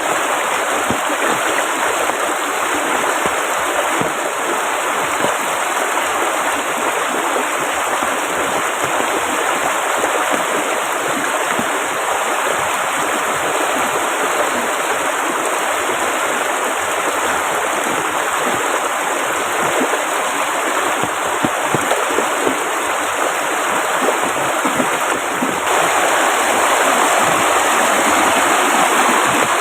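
Heavy rain falling in a dense, steady hiss of drops, mixed with a river running; it grows a little louder over the last few seconds.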